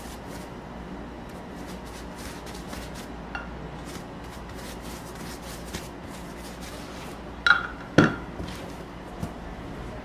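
Soft scraping of a plastic spreader working a spread over a slab of schiacciata bread on a steel counter, over a steady kitchen hum. Two sharp clinks of kitchenware come close together about seven and a half seconds in.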